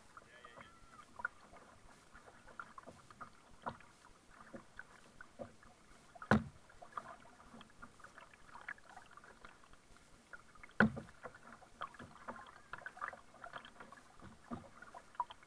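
Double-bladed kayak paddle strokes dipping into sea water, with irregular small splashes and drips running off the blades. Two louder knocks stand out, about six and eleven seconds in.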